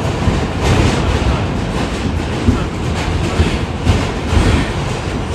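R46 subway car running at speed, a steady low rumble with the wheels clacking over rail joints in a loose series of knocks.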